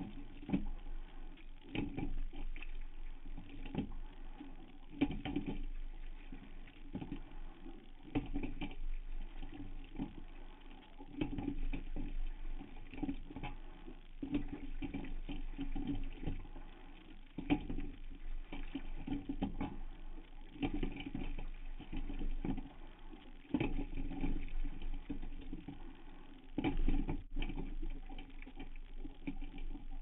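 Hudson single scull being rowed: a regular knock and splash about every one and a half to two seconds as the oars work in the oarlocks and the blades catch the water, over a steady water rush.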